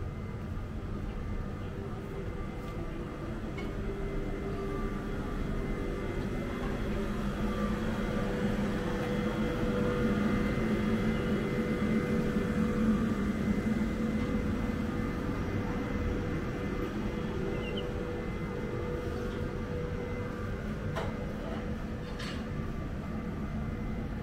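Steady mechanical hum with a few held tones, swelling louder for several seconds in the middle and easing off again.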